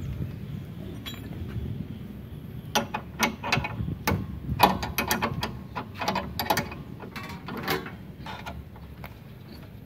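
Metal wrench clicking and clinking against a nut as a cable lug is tightened onto a welding machine's output terminal stud, in quick irregular clusters from about three seconds in until about eight seconds, over a low steady rumble.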